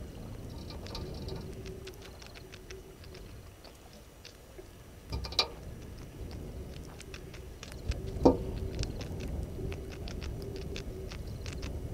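Elephants wading and drinking in shallow water: irregular splashes, drips and clicks over a low rumble, with two sharper knocks about five and eight seconds in.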